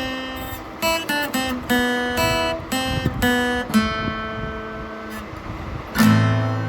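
Acoustic guitar music: single plucked notes ringing one after another, then a louder strummed chord about six seconds in.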